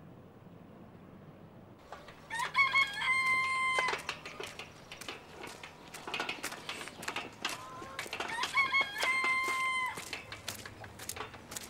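A rooster crows twice, about six seconds apart, each crow rising and then held long, with hens clucking in between; it all starts about two seconds in.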